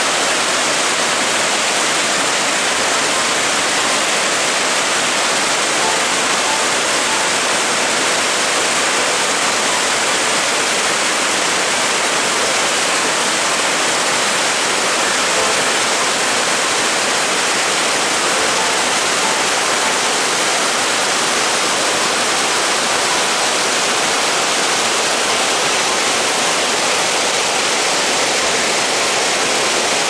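Mountain waterfall and white-water rapids pouring over rocks in a gorge: a loud, steady rush of water.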